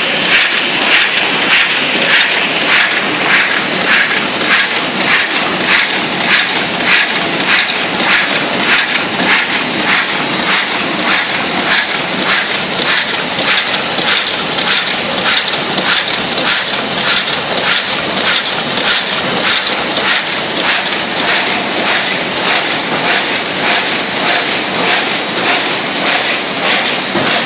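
Brauss automatic flatbed die-cutting machine running in production: an even, repeating stroke about twice a second over a steady hiss, as it feeds and cuts printed sheets one after another.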